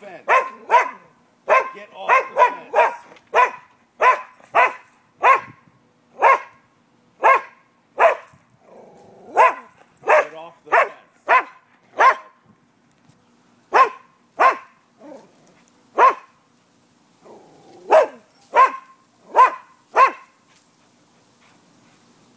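A dog barking over and over in short, sharp single barks, quick at first, then about one a second with a few short pauses, stopping near the end.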